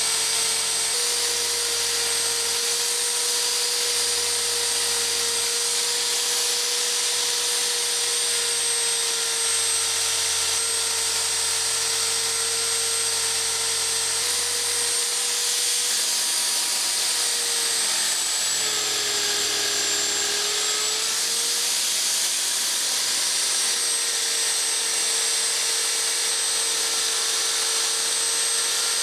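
Electric power tool running steadily with a high motor whine over a hiss, its pitch sagging for a couple of seconds about two-thirds of the way through as it is loaded, then recovering.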